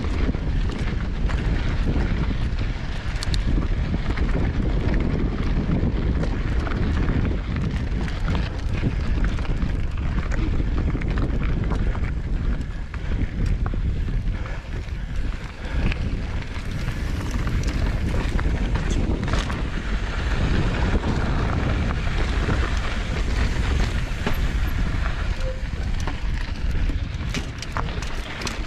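Wind buffeting the microphone of a camera riding along on a mountain bike, with the rumble of tyres on a dirt trail and scattered clicks and rattles from the bike.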